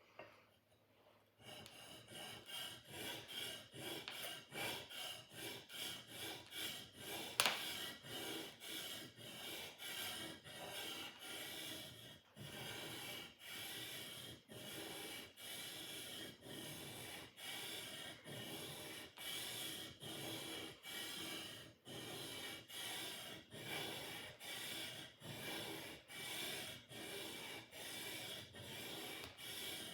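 Sword blade being sharpened: steady rasping strokes of metal drawn over a sharpening surface, about three every two seconds, starting after a second and a half. There is one sharp click about a quarter of the way through.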